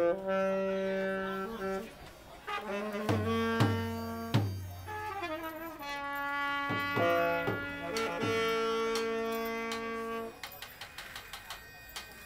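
Saxophone playing slow, long held notes, with a few low thumps under them; the playing stops about ten seconds in.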